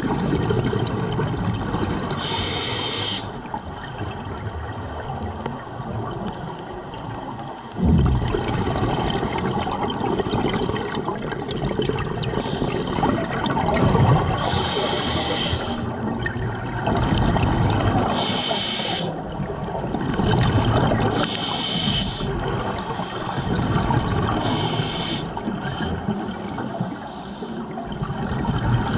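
A diver breathing through a scuba regulator underwater: a hiss on each inhale, then a gurgling rush of exhaust bubbles, repeating every few seconds.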